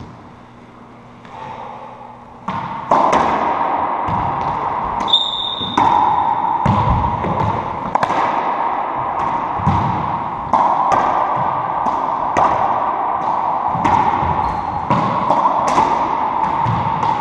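Racquetball rally: a few soft bounces of the ball, then from about two and a half seconds in a long run of sharp smacks, about one to two a second, as the ball is struck by racquets and rebounds off the court's walls and floor, each echoing in the enclosed court. A brief high squeak about five seconds in.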